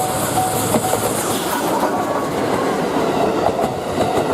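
The D51 200 steam-hauled train of 35-series coaches passing close by, wheels clattering on the rails. A level-crossing warning bell rings about twice a second in the first second and then is drowned by the train.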